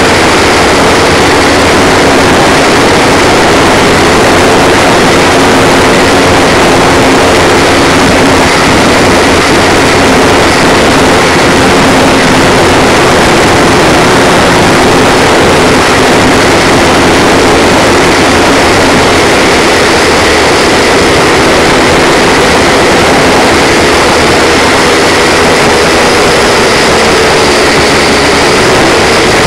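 Blade 180QX quadcopter's motors and propellers buzzing loudly and steadily, heard from the onboard camera, the pitch wavering slightly as the throttle changes.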